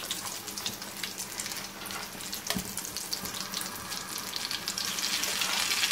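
Egg-coated shami kababs shallow-frying in hot oil in a pan: a steady sizzle full of fine crackles, with a single knock about two and a half seconds in.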